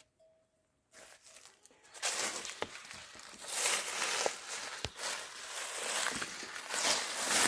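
Close rustling and crunching in uneven swells with a few sharp clicks, like dry leaf litter and bedding being stepped on and disturbed.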